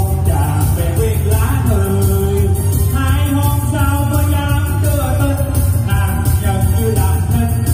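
A man singing a lô tô number-calling song into a microphone over an amplified backing track with a steady beat and heavy bass.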